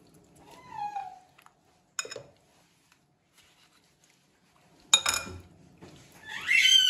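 Sparse kitchen clatter: a light knock about two seconds in and a sharp clink of dishes or utensils about five seconds in, while tomato pulp is pressed through a plastic sieve.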